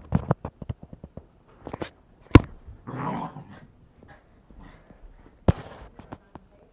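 Dog vocalizing during play, among rustling and small knocks. Two sharp thumps stand out, about two and a half and five and a half seconds in.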